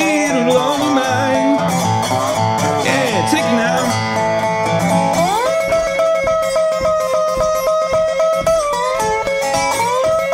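Acoustic blues guitar playing an instrumental passage without vocals, its notes sliding in pitch. About five seconds in it slides up to a long held chord, which dips and climbs back near the end.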